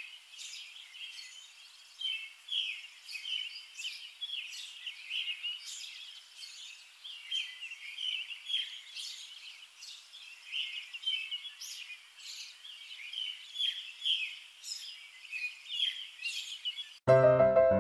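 Small birds chirping, many short, high calls overlapping without a break. Piano music cuts in just before the end.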